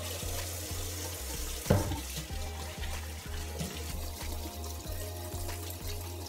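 Kitchen tap running into the sink as hands are washed under it, with one sharp knock about two seconds in.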